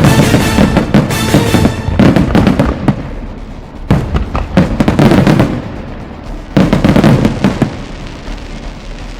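Fireworks going off in rapid volleys of crackling bangs, coming in several clusters with short lulls between, and thinning out near the end.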